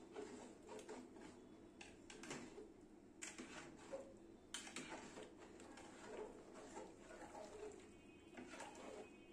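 Faint, irregular scraping and clinking of a metal spoon stirring meat and potatoes in broth inside an aluminium cooking pot.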